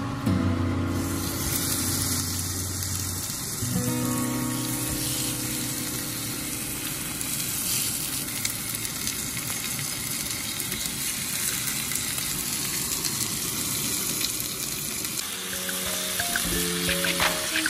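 Food frying in a pan, a steady sizzling hiss. Background music plays over it at the start and again near the end.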